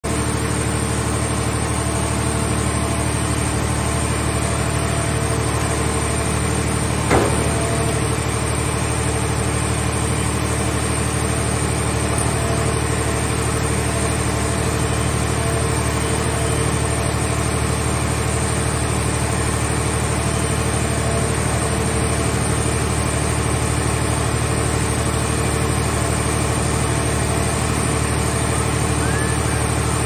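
Steady hum of heavy hydraulic machinery running: the grab and the scrap car shell baler. There is one loud clank about seven seconds in.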